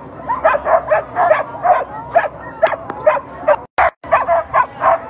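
A team of harnessed sprint sled dogs barking and yipping rapidly, about two to three barks a second, in their eagerness to run while held at the start line. The sound cuts out for an instant a little past halfway.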